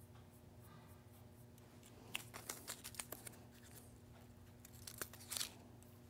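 Faint rustling and crackling handling sounds: a quick cluster of small clicks about two seconds in and a short crackling rustle near the end, over a steady low hum.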